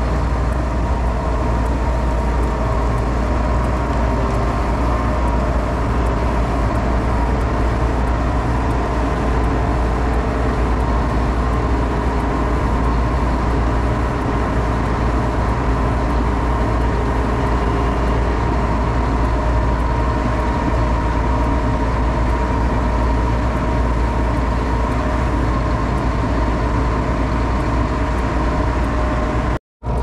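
Vehicle driving along at a steady speed: engine running with a steady low rumble and droning hum, broken by a brief dropout just before the end.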